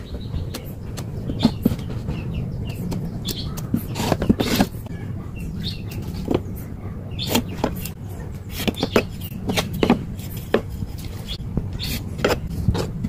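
Sharp knocks and clicks at irregular intervals, a dozen or so, over a steady low hum.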